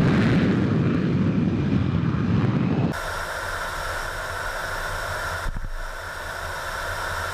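Jet fighter noise: a loud rumbling roar, then about three seconds in a cut to a quieter, steady jet whine heard from inside the cockpit, with a brief knock a little later.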